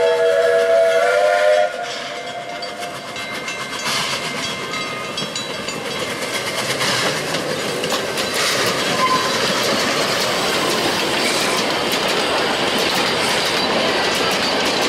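The steam whistle of NGG16 Garratt locomotive No. 129 sounds a chord and cuts off just under two seconds in. Then the steam locomotive and its carriages pass close by, with wheel clatter and running noise growing steadily louder.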